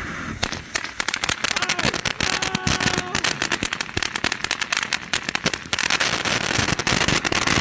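Consumer fountain firework burning, its hiss giving way about half a second in to dense, rapid crackling that carries on to the end. This is the fountain's crackling stage.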